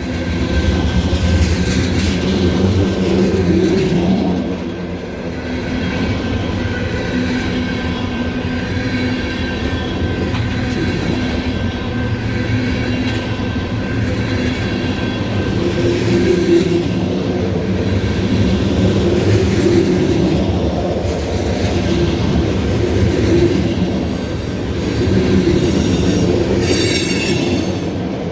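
Freight train of ethanol tank cars rolling steadily past, with a brief high-pitched wheel squeal near the end.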